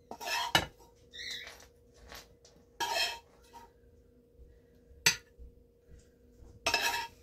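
A metal serving utensil scraping and clinking against a stainless steel frying pan as green beans are served onto plates, in a few short bursts with a sharp clink about five seconds in. A faint steady hum runs underneath.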